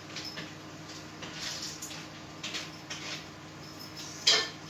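Faint kitchen handling sounds as fish is laid in a baking dish: light clicks and wet rustles, with one short, sharp, louder sound near the end.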